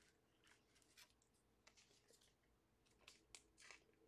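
Near silence, with a few faint clicks and rustles of cards and a box being handled on a table, most of them between about three and four seconds in.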